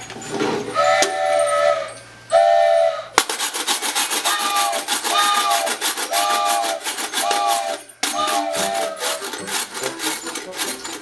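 A hand-worked foley sound-effect device being rubbed, giving a rapid rasping chatter with short pitched squeaks. Two squeaks come near the start, then about one a second from roughly four seconds in.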